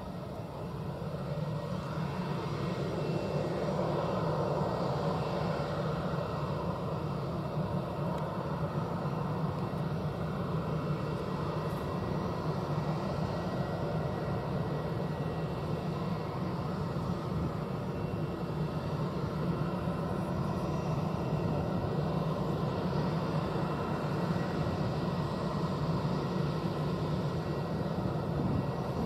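Airbus A320's CFM56 turbofan engines running steadily at low power as the airliner rolls slowly along the taxiway, a steady engine hum and jet hiss that swells over the first few seconds and then holds.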